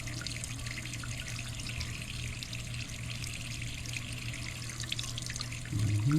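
Water running steadily from a hose or tap down an open toilet drain, trickling and splashing as it drains freely without backing up: a drain test before a new toilet is set. A low steady hum runs underneath, and a brief louder low sound comes just before the end.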